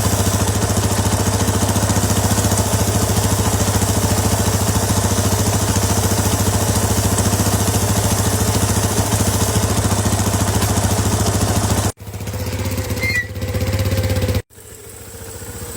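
ATV engine running at a steady idle with an even pulse. The sound cuts out abruptly twice near the end and comes back quieter each time.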